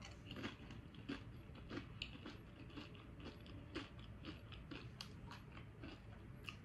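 A person chewing a mouthful of chip topped with burrito-bowl rice, with faint, irregular crunches about two or three times a second.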